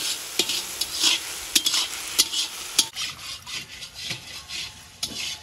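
Metal ladle stirring and scraping onions, tomatoes and ginger as they sauté and sizzle in oil in a large iron kadai, with sharp scrapes against the pan. The sound becomes quieter after about three seconds.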